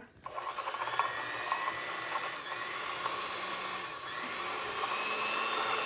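Electric hand mixer running steadily with a motor whine, its beaters creaming butter and sugar in a bowl.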